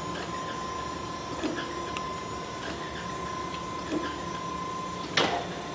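Okamoto ACCUGAR-124N precision surface grinder running under automatic feed: a steady high whine, with a brief knock about every two and a half seconds as the hydraulic table travels and indexes. A sharp, loud clack comes about five seconds in.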